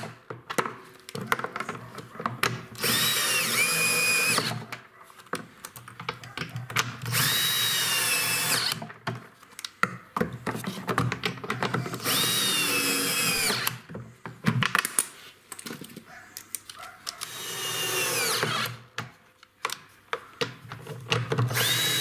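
Power drill-driver driving bolts into a plastic washing-machine tub flange, in short runs of one to two seconds. There are four runs, and a fifth starts at the very end. The motor's whine drops in pitch at the end of each run, and the tool clicks and knocks between runs.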